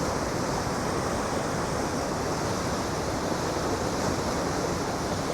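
Fast-flowing water of the River Wharfe rushing through the narrow rock channel of the Strid: a steady, unbroken rush of white water.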